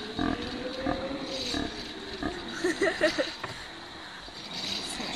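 A drawn-out, moaning voice-like sound that rises and then falls in pitch over about two seconds, followed by brief muttering.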